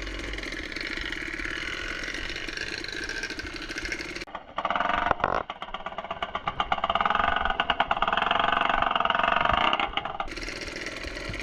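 Dirt bike engine running. From about four seconds in, a louder, closer stretch with rapid, pulsing firing beats takes over for about six seconds before the steadier running returns.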